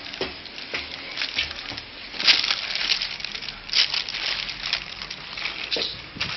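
A sheet of paper rustling and crinkling as it is handled, with irregular crackles; it is loudest about two seconds in and again near four seconds.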